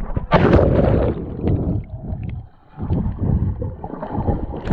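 Water sloshing and gurgling close against the microphone, in two uneven loud surges, the first and loudest starting just after the beginning and the second about three seconds in.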